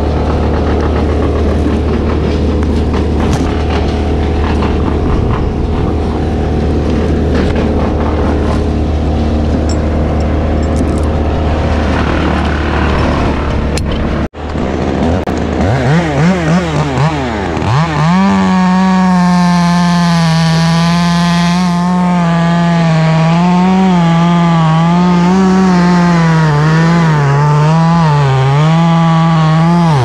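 A steady engine drone for roughly the first half. After a sudden break, a two-stroke chainsaw revs up a few times and then cuts into the hickory trunk at full throttle, its pitch dipping and recovering as the chain bites.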